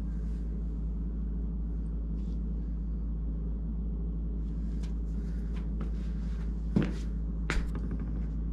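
Light metallic clinks and knocks of metal parts and tools being handled, scattered through the second half, with two louder knocks under a second apart near the end, over a steady low hum.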